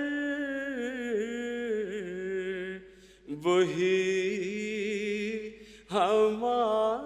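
A man's solo voice singing an Urdu nazm without accompaniment, holding long, ornamented notes that waver in pitch. It breaks off for a breath about three seconds in and again just before six seconds, each time starting a new phrase.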